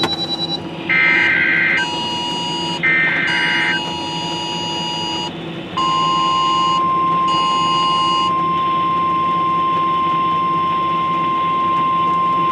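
Emergency Alert System tones from a radio: two short bursts of warbling digital header data in the first four seconds. About six seconds in, a single steady, piercing alert tone starts and holds, the signal that a tornado warning message is about to be read.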